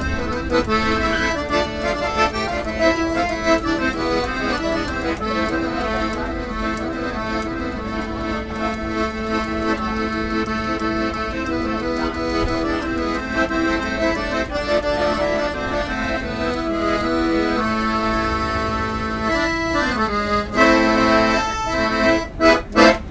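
Piano accordion playing a tune, with held chords under the melody; near the end the playing breaks into a few short, separate chords.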